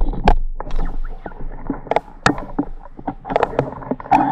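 Footsteps through wet trail mud: irregular squelches, knocks and rustles.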